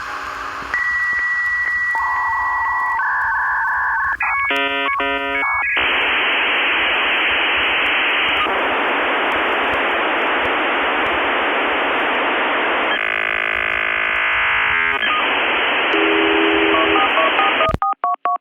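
Telephone-line sounds like a dial-up modem connecting: steady tones, a burst of dialing beeps about four seconds in, then long stretches of harsh hiss, with quick beeps near the end.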